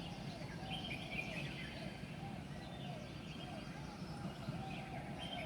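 Wild birds calling at dawn: a run of short, arched low notes repeating a few times a second, with higher chirps scattered over them, above a steady low hum of city background.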